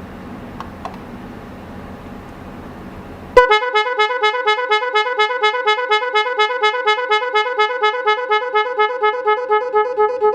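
Snail-type car horn sounding a loud rapid two-tone warble. It starts suddenly about three seconds in and flips between two close pitches about five times a second.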